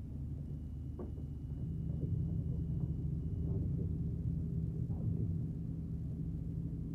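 Low, sustained drone of a TV drama's background score, a few steady deep tones that swell slightly about a second and a half in, with a few faint knocks.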